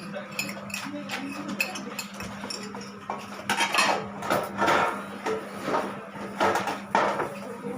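Dishes and cutlery clinking and clattering, with a run of louder clatters from about three and a half seconds in, over a steady low hum.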